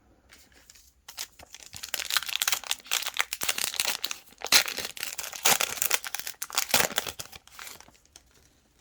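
Plastic wrapper of a trading-card pack crinkling and tearing as it is ripped open by hand: a dense run of crackles and rips that starts about a second in and dies away near the end.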